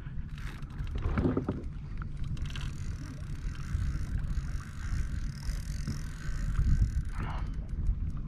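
Wind buffeting the microphone over water lapping around a kayak, with a fainter steady higher hiss through the middle.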